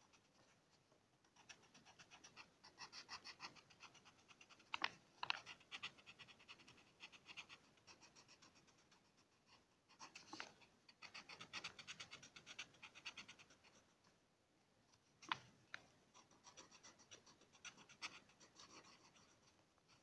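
Coloured pencil scratching on paper in runs of quick, short strokes, faint, with a few louder sharp clicks now and then.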